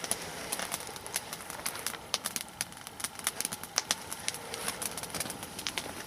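Nodya log fire crackling: raw logs burning over glowing coals, giving many quick, irregular snaps and pops.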